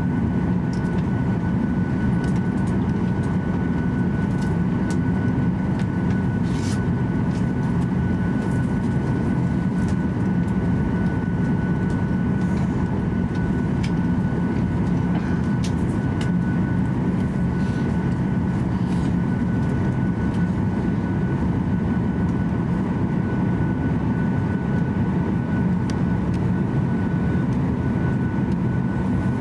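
Cabin of a Boeing 737-800 airliner taxiing after landing, its CFM56 engines at taxi power: a steady low hum with a thin, even whine above it and a few faint ticks.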